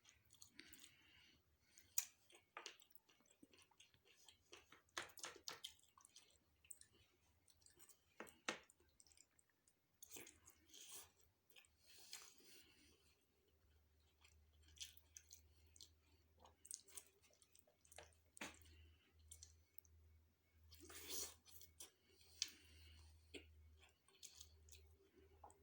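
A person chewing and eating food close to the microphone: quiet, irregular wet mouth sounds with sharp clicks and smacks scattered throughout.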